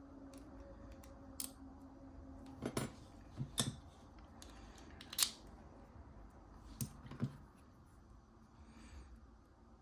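Scattered sharp metallic clicks and taps from handling a brass padlock and its tools on a bench mat, some in quick pairs, the loudest about five seconds in. A faint steady hum runs underneath and fades out about three seconds in.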